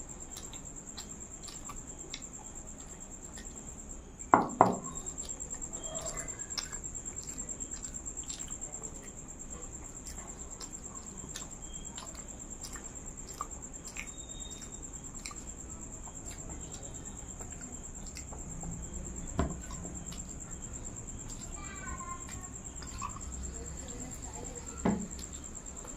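A person eating by hand with close mouth sounds, chewing and lip smacks, and a few sharp knocks of dishes on the table, over a steady high-pitched whine.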